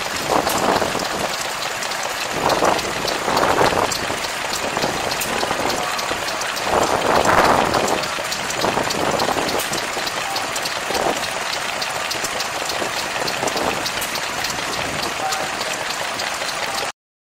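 Small single-cylinder stationary engine running steadily, a fast even patter, with voices in the background. The sound cuts off suddenly near the end.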